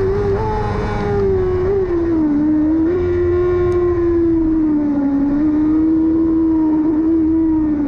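Yamaha R6 600 cc inline-four engine running hard at high revs under racing load, one steady pitched note that sags slowly and wavers a little as the throttle is worked.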